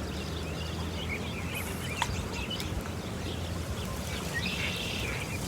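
Outdoor ambience: scattered bird chirps over a steady low rumble, with a single sharp click about two seconds in.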